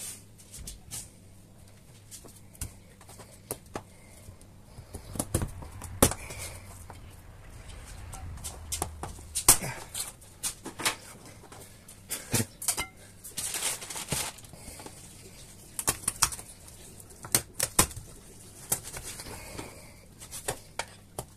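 Kitchen knife chopping raw rabbit into pieces on a plastic cutting board: irregular sharp knocks of the blade striking the board, with quieter handling of the meat between them.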